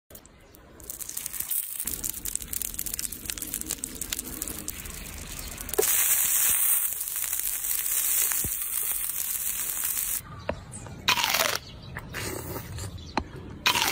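Whole tomato sizzling and crackling on a hot stone slab, the sizzle getting much louder about six seconds in. Near the end come a few short wet bites into the tomato.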